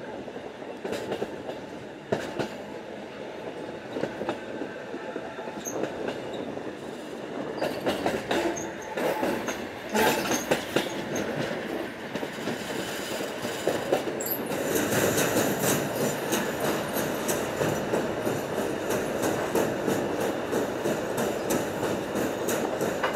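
Train running along the track: a steady rumble of wheels on rail with clacks over rail joints, growing louder and busier about two-thirds of the way through.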